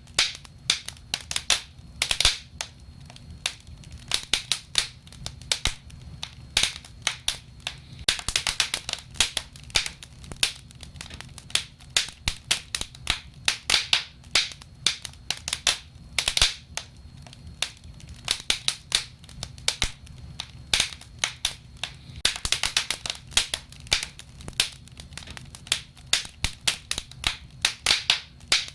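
Wood logs burning in a fireplace, crackling and snapping loud: irregular sharp pops, often in quick clusters, over a low rumble of the fire.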